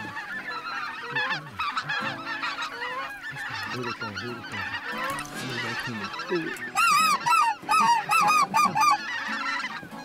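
A flock of geese honking and cackling, many calls overlapping. About seven seconds in, a run of loud, close honks comes about four a second for two seconds.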